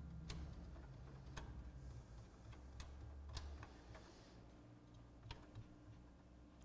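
Faint, irregular plastic clicks, about half a dozen, as the loading gear train of a Pioneer PD-DM802 CD changer is turned by hand to try to free a jammed magazine tray. Under them is a low rumble that dies away about halfway through.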